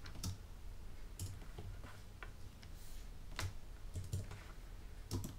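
Irregular clicks of a computer mouse and keyboard, some in quick pairs, over a faint low hum.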